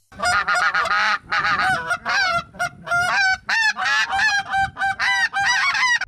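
A rapid run of goose honks and clucks, short pitched calls at about three to four a second, some with a quick upward flip in pitch.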